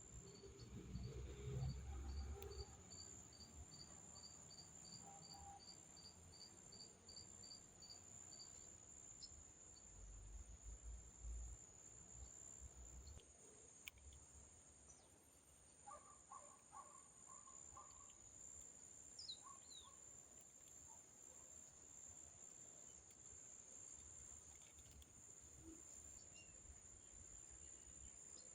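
Faint rainforest insect chorus: a steady, high-pitched drone, with a repeated chirp about twice a second for the first eight seconds. Scattered short bird calls and a few low rumbles.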